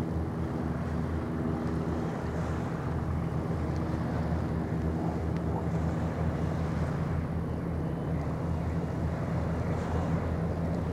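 Steady low drone of a large ro-ro ferry's diesel engines working under way, carrying across the harbour water with a constant hum and outdoor noise.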